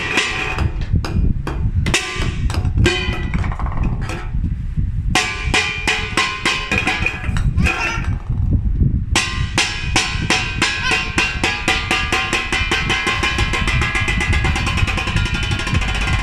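Golf balls clicking and clattering in quick runs of sharp, ringing hits. About nine seconds in they turn into a fast, even rattle of clicks.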